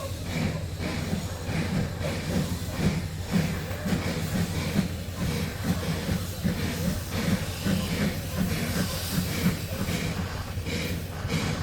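Steam locomotive chuffing as it pulls away, a steady beat of exhaust puffs about one and a half a second over a running hiss.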